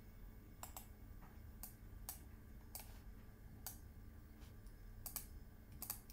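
Faint, scattered clicks of a computer mouse and keyboard, about a dozen at irregular intervals, some in quick pairs.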